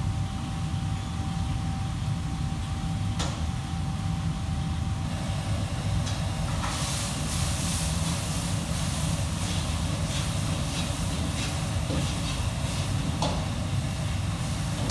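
Gas wok burner and extractor hood in a commercial kitchen, running with a steady low rush. About five seconds in, the hiss and sizzle of food stir-fried in the wok grows louder, with a couple of sharp knocks of utensils.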